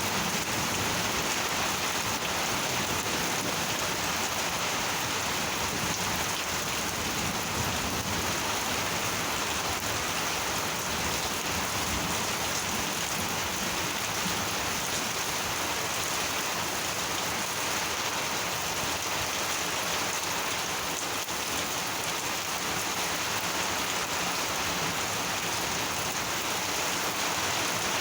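Monsoon rain falling steadily, an even hiss of raindrops on surfaces that holds level throughout.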